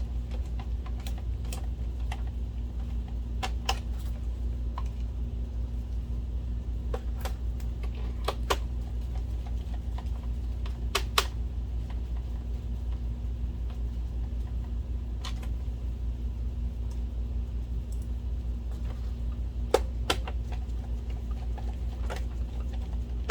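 Scattered light clicks and taps of screws and a screwdriver on a plastic projector case, as the case screws are driven back in, over a steady low hum.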